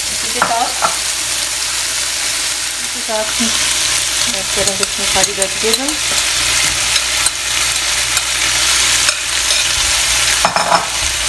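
Fish pieces sizzling steadily in hot oil in a non-stick frying pan while a spatula stirs, with a run of sharp clicks and scrapes around the middle as chopped peppers, onion and tomato go into the pan.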